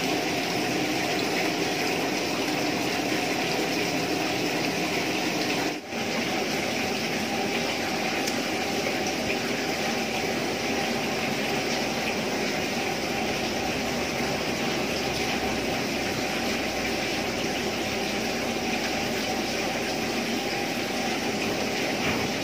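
A thin stream of freshly distilled rice spirit running from a still's outlet pipe and splashing into a shot glass, a steady rushing, trickling noise. It breaks off briefly about six seconds in, then carries on evenly.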